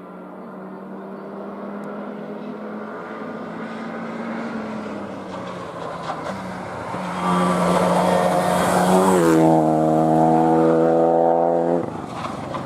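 Rally car approaching at speed, its engine growing louder until it passes close with a loud rush. The engine note then drops quickly in pitch and holds high-revving before falling away suddenly near the end.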